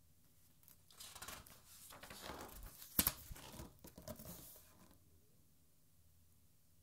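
A page of a large-format art book being turned by hand: paper rustling for about four seconds, with one sharp snap of the page about halfway through.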